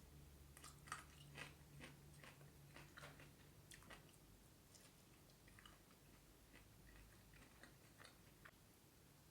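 Person chewing food, with soft wet mouth clicks and smacks, frequent for the first few seconds and then sparser.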